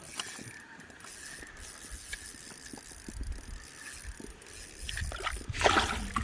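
Fishing reel being cranked, a fast mechanical clicking and whirring as a hooked fish is reeled in. It grows louder and noisier near the end.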